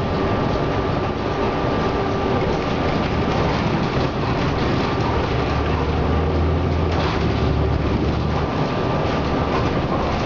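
Inside a moving city transit bus: steady engine and road noise. A faint high whine runs through most of it, and the low engine drone grows stronger about halfway through.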